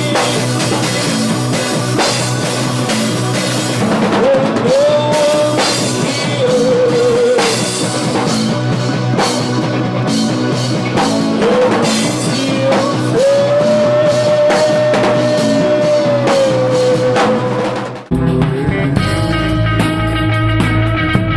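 Gothic rock band playing with a full drum kit under a long held melody line that bends in pitch. About 18 seconds in the music breaks off for an instant and a new, heavier section starts.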